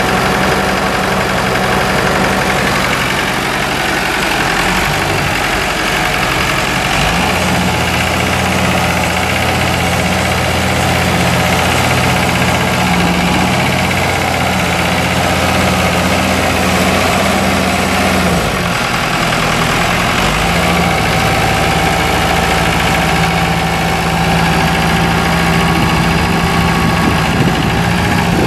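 2003 Massey Ferguson 4345 tractor's Perkins four-cylinder diesel engine running steadily as the tractor is driven. The engine speed changes about a quarter of the way in and again about two-thirds of the way through.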